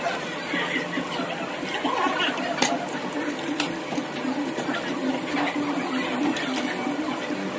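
Indistinct voices over a busy background, with a few sharp clicks and a steady low hum that comes in about halfway through.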